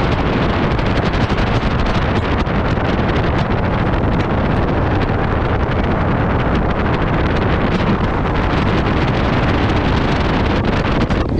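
Wind rushing over the action camera's microphone on a moving Royal Enfield Himalayan, with the motorcycle's single-cylinder engine and its tyres on a gravel road running steadily underneath, dotted with frequent small ticks.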